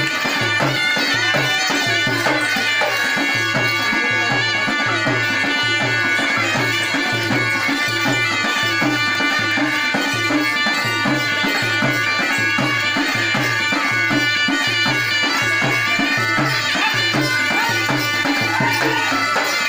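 Live Indian folk music for dancing: barrel drums beating a steady rhythm of about two strokes a second under a droning, reedy wind melody.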